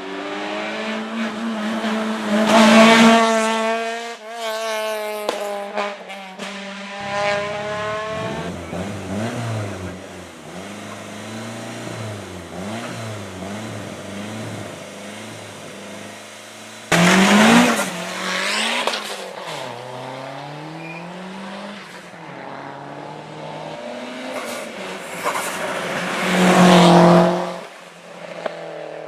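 Hill-climb racing cars at full throttle, their engines rising and falling in pitch through gear changes. Cars pass close and loud three times: about three seconds in, about halfway, and near the end.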